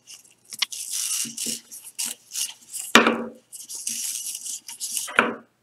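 Stiff tulle mesh ribbon rustling and crinkling as it is handled and gathered into bow loops. Two sharper knocks break through, the louder about three seconds in and another near the end.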